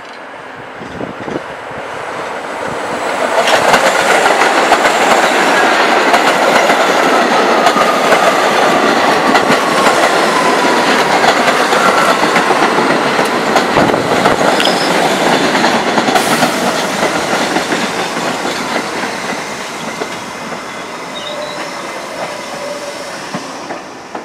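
New York City subway train running along the platform, building up over the first few seconds as it comes close, wheels clattering over rail joints, with a whine that falls in pitch. It eases off over the last few seconds.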